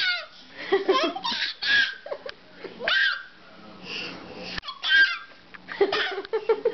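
A baby making a string of short, high-pitched squeals and shrieks, with laughter-like bursts whose pitch slides up and down, broken by brief pauses.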